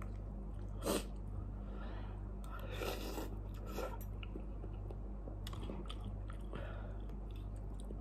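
A person eating instant cup noodles with forks: chewing and mouth sounds, with a few short sharp clicks and a longer noisy stretch about three seconds in, over a steady low hum.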